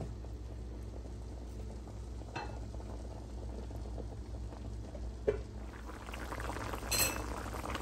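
A pot of pork and black bean stew bubbling at a boil over a steady low hum, with a couple of small clicks and a sharper clink near the end.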